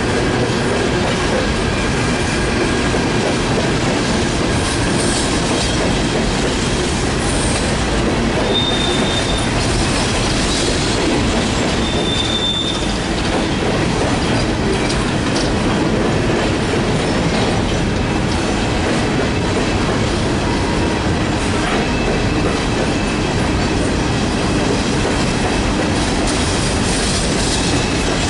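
Empty Norfolk Southern coal cars rolling past on the rails: a steady rumble and clatter of steel wheels. Two short high wheel squeals come about nine and twelve seconds in.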